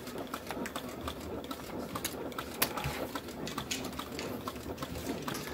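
Casino chips clicking and clacking in quick, irregular taps as a dealer collects chips and cards from the felt table, with one sharper clack a little after two seconds in, over steady low background noise.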